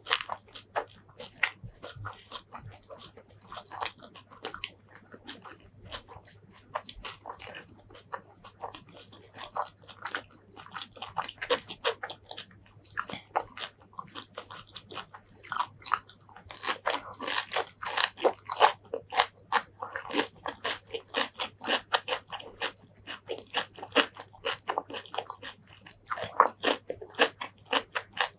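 Close-miked mouth sounds of eating: chewing with crisp crunches, as raw leafy greens and mouthfuls of curry, rice and eggplant are bitten and chewed, in quick irregular clicks and crackles that come thickest past the middle and again near the end.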